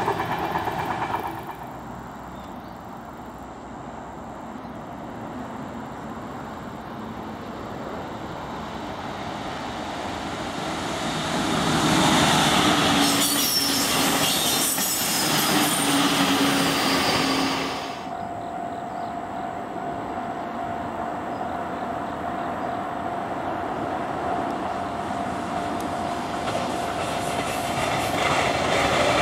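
JR Kyushu 813-series electric trains running past. One long train draws closer and passes loudest from about twelve to eighteen seconds in, and the sound then cuts off abruptly. Another train then approaches with a steady whine that grows louder near the end.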